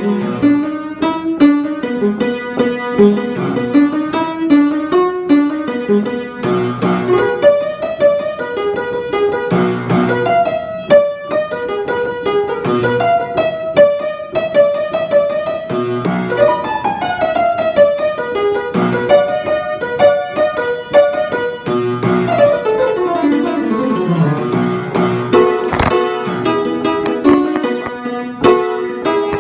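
Upright piano played solo in a continuous flowing passage: repeated bass notes under quick melodic figures, with runs sweeping down the keyboard twice in the second half.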